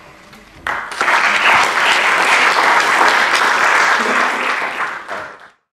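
Audience applauding: the clapping starts about a second in, runs loud and even, then fades and cuts off abruptly near the end.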